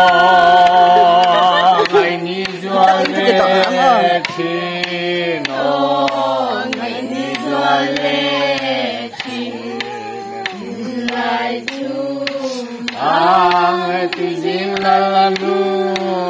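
A voice singing a slow melody with long held, wavering notes over a steady low drone.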